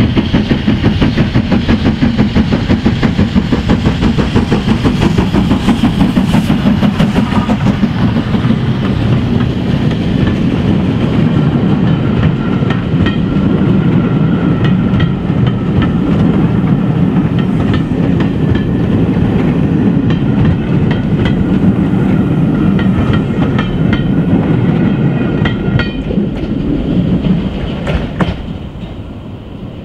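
Southern Railway Q class 0-6-0 steam locomotive 30541 working hard as it passes, with a rapid, even exhaust beat. Its coaches then roll by, wheels clicking regularly over the rail joints, and the sound fades near the end as the train draws away.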